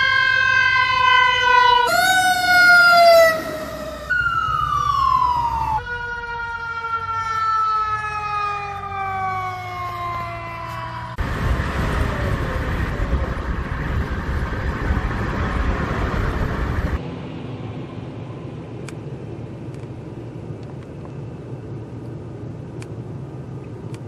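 Emergency vehicle sirens wailing, their pitch falling in long slow glides, across several short cuts. About eleven seconds in, this gives way to the rushing road noise of a semi truck passing on a highway for about six seconds, and then to quieter steady noise.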